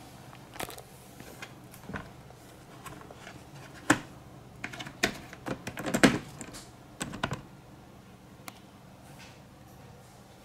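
Plastic pet carrier being handled: a run of irregular clicks and light knocks on its grille door and shell, busiest in the middle.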